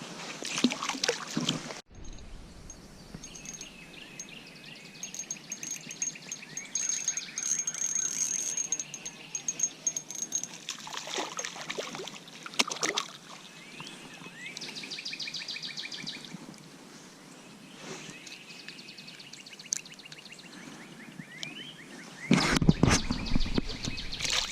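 Several songbirds chirping and trilling, with short repeated calls and a high thin note repeated for a few seconds. Louder rustling and handling noise comes in the first couple of seconds and again near the end.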